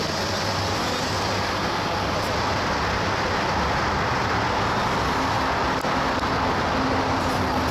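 Santiago Metro Line 2 rubber-tyred train running, a steady loud rushing noise with a faint hum coming in about five seconds in.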